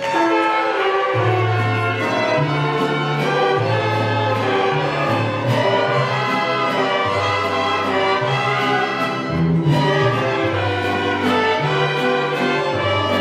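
Student mariachi ensemble playing: violins carrying the melody over strummed guitars and a bass line that steps to a new note about every second, with trumpets in the group.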